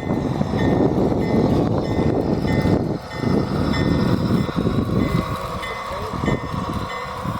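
G-scale garden train running on outdoor track, a dense rattle of wheels on rail that eases off after about five seconds. A short high ding repeats evenly about twice a second over it.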